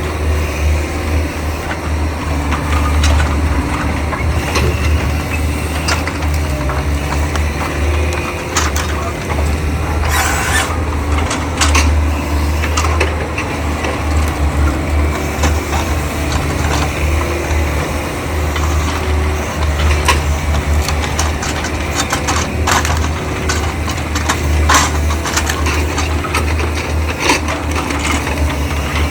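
Diesel excavator engine running steadily under work, with scattered knocks and clanks from the machine.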